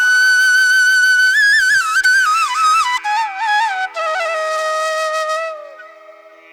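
Background music: a solo flute melody with long held notes bent by small ornaments, over a steady drone. It steps down to a lower held note and fades near the end.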